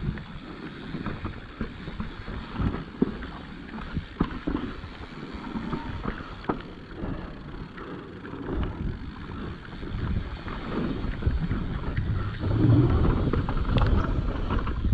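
Mountain bike descending a dirt trail: wind buffeting the microphone and tyres rolling over the ground, with many short knocks and rattles as the bike hits bumps.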